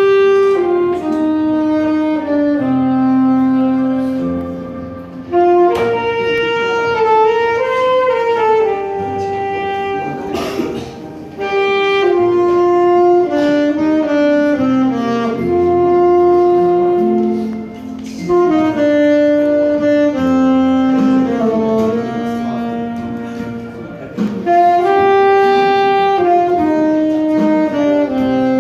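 Saxophone playing the melody of a slow Korean ballad, one note at a time, mostly long held notes with short slides between them.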